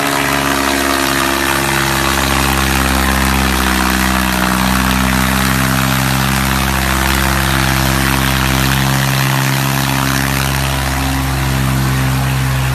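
New Holland 3630 tractor's three-cylinder diesel engine running steadily, even and unbroken, while it tows a fully loaded trolley.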